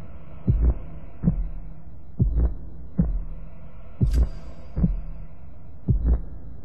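Heartbeat sound effect: deep thumps at roughly one a second, some of them doubled, over a low steady hum.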